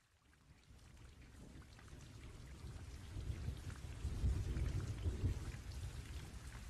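Steady rain with rumbling thunder, fading in from silence and growing louder; the deepest rumble comes about four to five seconds in.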